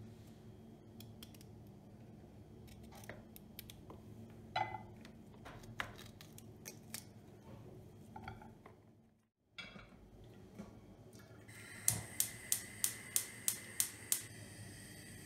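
Kitchen prep sounds: scattered clicks and taps of utensils, then a run of about eight sharp, evenly spaced clicks near the end.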